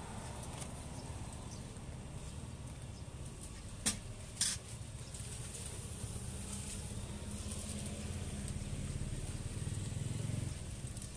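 Outdoor street ambience: a steady low rumble of traffic, with a low hum that grows louder near the end, and two sharp clicks about four seconds in, half a second apart.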